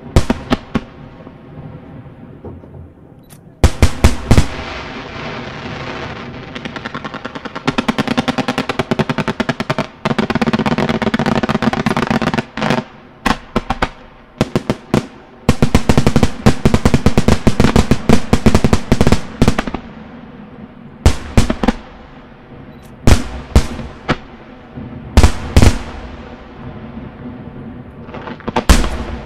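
Fireworks display: aerial shells bursting with sharp, loud bangs, and two long stretches of very rapid bangs, many per second, about eight and sixteen seconds in.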